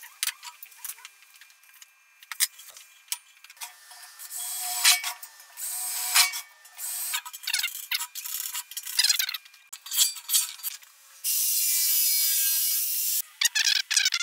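Metalworking on a steel oil drum being turned into a drum shell: scraping and scratching strokes with scattered clicks and taps, then a drill runs steadily for about two seconds near the end.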